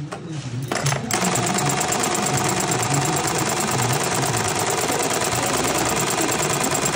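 Reece 104 keyhole buttonhole machine starting up about a second in and running its stitching cycle with a rapid, steady clatter.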